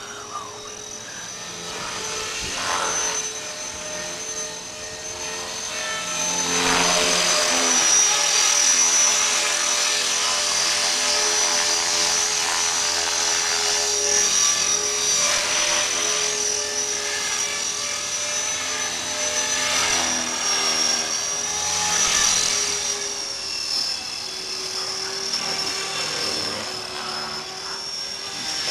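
Blade 400 3D electric RC helicopter in flight: a steady high-pitched whine from its motor and rotor drive, with rotor-blade whooshing that swells and fades as it flies low past and climbs away.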